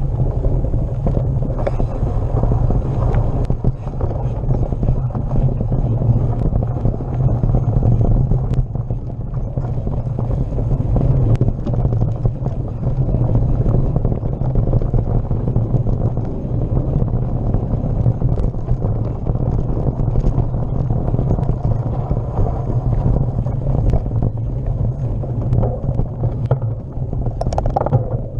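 Wind buffeting the microphone over the rumble of a mountain bike rolling along a dirt singletrack, with frequent small rattles and ticks from the bike. Near the end a brief sound rises in pitch.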